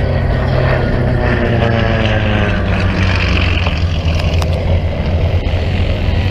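Propeller airplane engine passing by, its pitch falling as it goes, over a steady low rumble.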